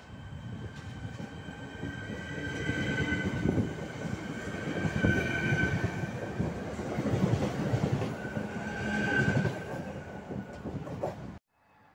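ČD RegioPanter electric multiple unit running past along the platform: a rumble of wheels on rails that builds as the carriages go by, with a high-pitched whine that swells and fades several times. The sound cuts off abruptly near the end.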